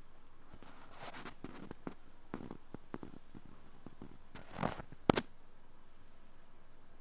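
Thin wire ear pick scraping inside the ear canal, heard through a microphone held right at the ear. A run of soft scratches and crackles, the loudest being a longer scrape and then two sharp clicks about five seconds in.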